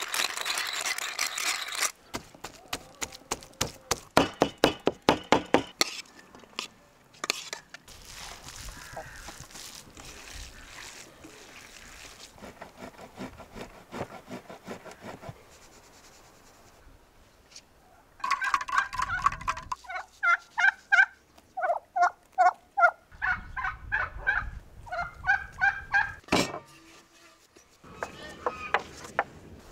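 Domestic fowl calling in a long rapid series of short pitched notes through the second half, after a run of sharp taps and a quieter stretch of handling sounds.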